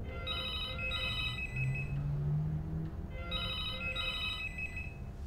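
Landline telephone ringing with a double-ring cadence: two pairs of electronic rings, about three seconds apart, ringing unanswered before the answering machine picks up.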